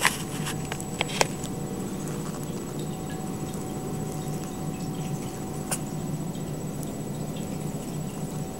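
Ragdoll kittens scuffling and tumbling on a blanket in a pen: scattered light clicks and taps, the sharpest about a second in, over a steady low room hum.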